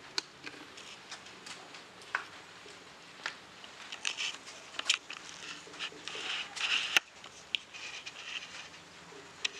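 Scattered clicks and short rustles from hands handling cables and a CRT television set as it is switched back on, with one sharp click about seven seconds in.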